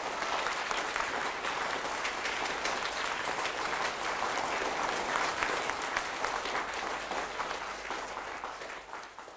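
Small seated audience applauding: a dense patter of many hands clapping that fades away near the end.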